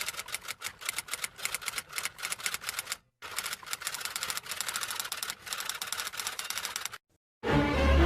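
Rapid typing: a fast run of key clicks, about eight to ten a second, that pauses briefly about three seconds in and stops shortly before the end. Music with a heavy bass comes in right at the end.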